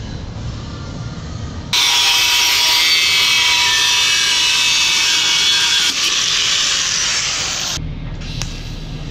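A power tool running, a loud high-pitched noise with a faint whine that starts abruptly about two seconds in and cuts off abruptly some six seconds later, with a low rumble before and after.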